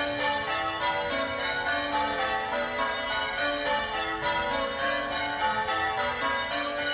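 A light ring of six church bells, cast by Gillett & Johnston in 1928 with the tenor in A, rung one after another in an even, unbroken run of strikes. Their ringing tones overlap.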